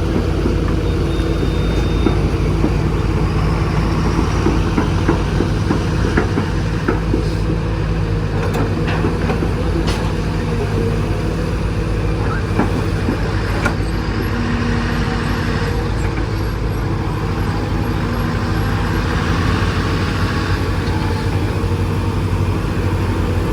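Heavy diesel engine running steadily, with a few sharp clicks and knocks over it.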